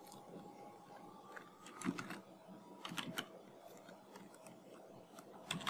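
Faint, scattered computer keyboard keystrokes: a few key presses about two and three seconds in, and a quick cluster near the end.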